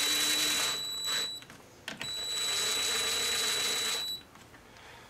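Cordless drill/driver running the chainsaw's bar nuts down onto their studs in two short runs of about one and a half to two seconds each, with a steady high motor whine.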